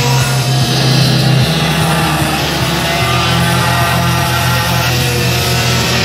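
Rock music playing, with racing kart engines faintly whining and changing pitch underneath.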